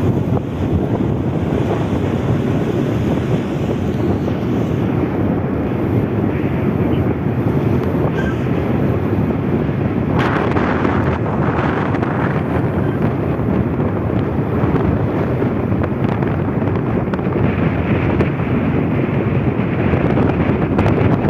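Strong wind buffeting the microphone: a loud, steady rush of noise with no pause.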